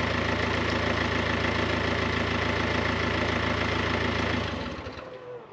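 VW Crafter van's diesel engine idling steadily, running again after a new timing belt was fitted, then switched off about four and a half seconds in, its sound dying away over the last second.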